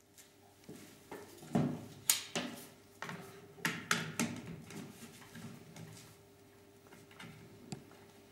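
Irregular knocks and clatters of hard objects being handled, loudest and most frequent in the first half and sparser later, over a faint steady hum.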